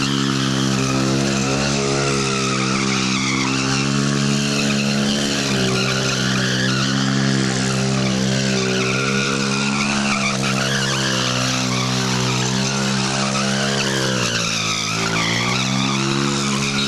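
Small sport motorcycle's engine held at high revs while its rear tyre spins and squeals on concrete, the bike circling in a burnout drift. The revs dip briefly near the end and climb back up.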